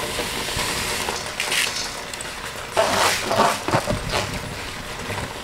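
Dry rice poured from a bowl into a steel pot of hot pilau paste: the grains rushing into the pot in uneven bursts, loudest around three seconds in.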